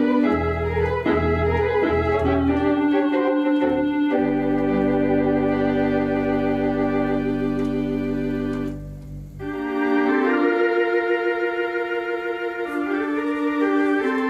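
Conn 650 electronic theatre organ playing sustained chords over pedal bass notes, with one long held chord and pedal note. The sound dips briefly about nine seconds in, then continues with wavering chords on the manuals alone, without the pedal bass.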